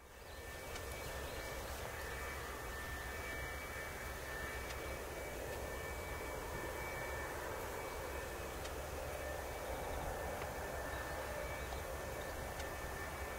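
Boeing 737-800's CFM56-7B turbofans heard from a distance on final approach: a steady low rumble.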